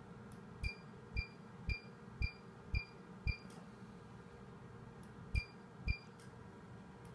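Dornier 940 nm diode laser firing pulse after pulse, each shot marked by a short high beep with a soft low thump, about two a second: six in a row, a pause, then two more, over a steady low hum. Each beep signals a laser pulse being delivered to a spider vein.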